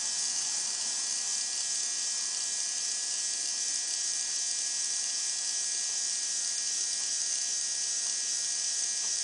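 Siku Control 32 drive motor with its plastic gearbox running steadily at 3 volts, a small electric gear motor's even whirr with a few faint steady whine tones. The output shaft turns at about 78 rpm, drawing about 40 milliamps.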